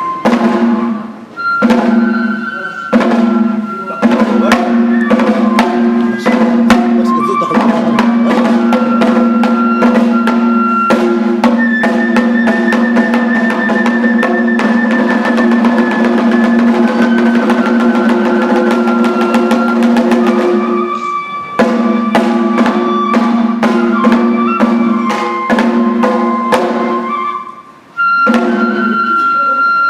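Kagura hayashi: a bamboo flute plays a melody over rapid taiko drum strokes, with brief breaks about a second and a half in, about 21 seconds in and near the end.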